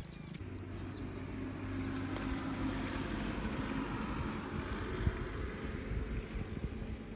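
A steady low hum of a motor running, an engine-like drone that holds level throughout.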